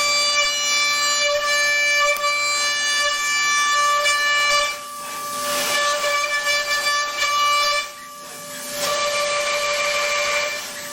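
CNC machine cutting with a steady high-pitched whine, constant in pitch. It drops out twice for about a second, and a hiss fills the gaps.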